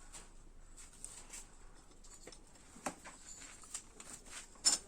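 Scattered faint clicks and taps from engine parts being handled by hand, with a sharper double click near the end.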